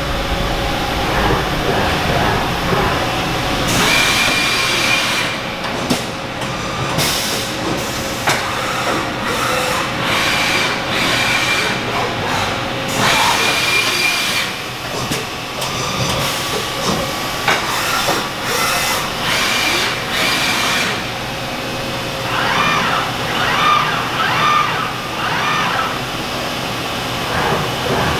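Haas UMC-750SS 5-axis CNC machining center running under power: a steady machine whine with repeated bursts of hissing air or coolant, each lasting one to several seconds. The whine stops about three quarters of the way in.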